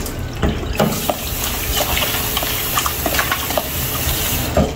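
Kitchen tap running into a sink while a container is rinsed out under it, with a few light knocks.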